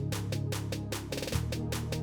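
Background music with a steady beat: quick, evenly spaced percussion ticks, about six a second, over a sustained low bass line.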